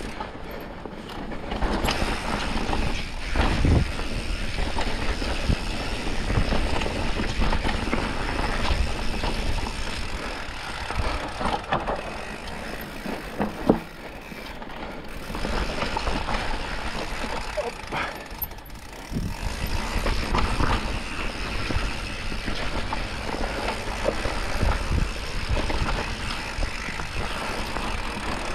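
Mountain bike rolling fast down a dirt singletrack: a steady rushing noise of tyres on dirt, with the bike rattling and sharp knocks over bumps, the loudest knock about halfway through.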